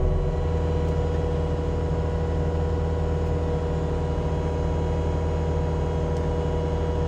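Heavy machine's diesel engine driving a forestry mulcher, running at a steady working speed with a constant drone and hum while mulching a pile of tree tops.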